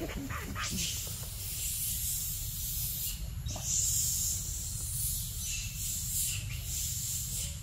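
Steady high-pitched buzz and hiss of forest insects, swelling louder about halfway through, over a constant low rumble.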